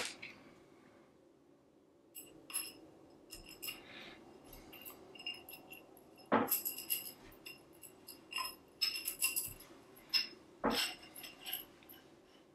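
Metal tensegrity struts clicking, tapping and ringing briefly as they are handled and knocked lightly together while cords are fed into their holes, with two sharper knocks about halfway and near the end.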